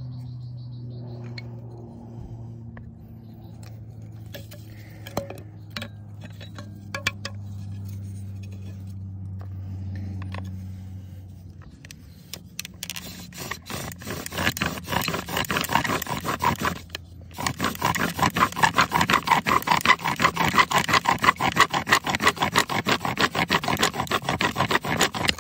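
Bow drill: a cedar spindle spun back and forth in an alder hearth board, a rhythmic dry scraping of wood on wood that starts about halfway in, pauses briefly, then resumes as the board begins to smoke.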